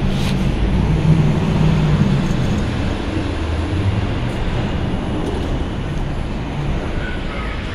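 New York City subway train pulling into the station and slowing to a stop, its rumble of motors and wheels fading gradually.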